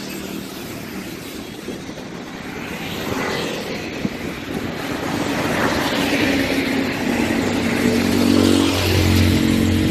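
Motor vehicle engine running with road traffic noise, its low drone growing louder and steadier through the second half.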